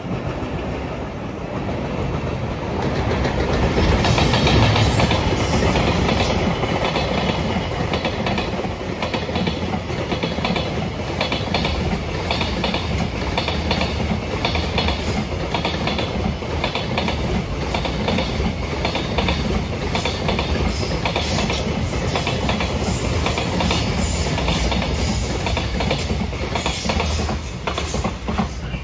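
A train passing close by, its wheels clicking over the rail joints in a fast, even rhythm. The rumble builds over the first few seconds and stays loud.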